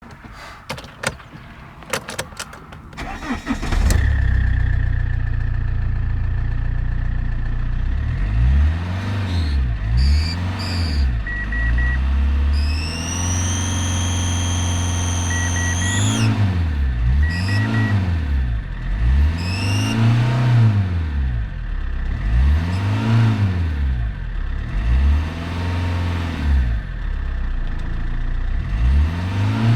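Fiat Stilo JTD turbodiesel engine starting after a few clicks about four seconds in, then idling and being revved again and again, each rev rising and falling. A steady high whistle sounds over the engine, and during one longer rev higher whistling tones climb with the revs. The owner suspects a gasket failure and wonders whether the turbo is the cause.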